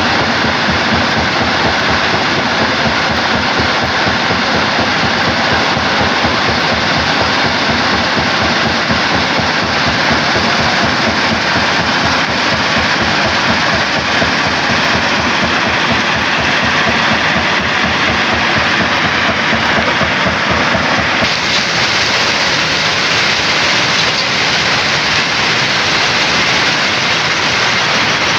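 Stone crusher running, crushing rock: a loud, steady mechanical din of dense, rapid knocking under a broad hiss. About 21 seconds in it turns brighter and hissier.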